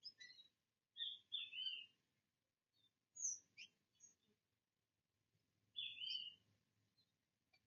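Wild birds chirping and calling in short high-pitched bursts, three clusters of calls a few seconds apart with quiet gaps between.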